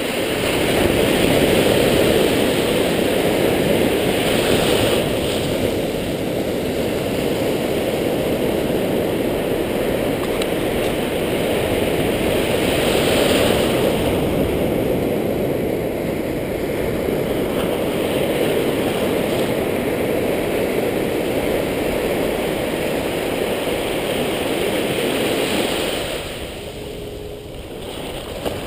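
Ocean surf washing through shallow water, waves breaking and foaming in repeated surges, with low rumble of wind on the microphone. The wash falls away near the end.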